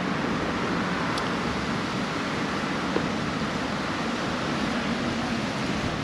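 Steady road traffic noise from a busy street, heard while cycling alongside it.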